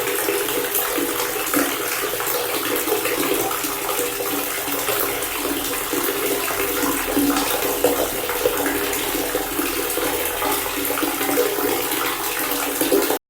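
Water pouring in a steady stream from a faucet, splashing continuously. It cuts off abruptly near the end.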